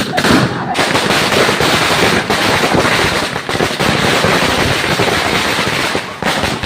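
A string of firecrackers going off in a rapid, dense run of cracks, with a short lull about six seconds in.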